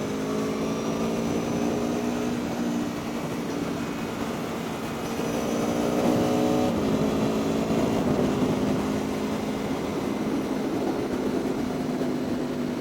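Aprilia Tuono V4 1100 motorcycle engine pulling under throttle, its pitch climbing slowly and then dropping abruptly about three seconds in and again about seven seconds in. Steady wind rush over the rider's microphone fills the rest.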